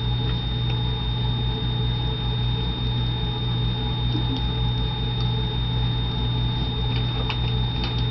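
Steady low electrical hum with a thin high whine. Over it come faint scratchy brush strokes and a few light ticks as a damp flat paintbrush works paint onto a glass jar.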